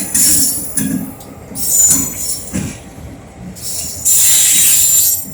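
Freight train rolling past, steel wheels squealing on the rails in thin high tones over a low rumble, with a loud hissing screech from about four seconds in.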